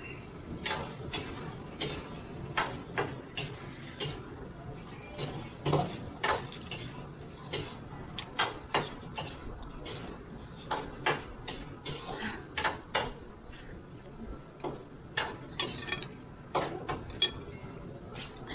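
Close-up eating sounds of a person slurping and chewing instant noodles: an irregular run of sharp, wet mouth smacks and clicks, one or two a second.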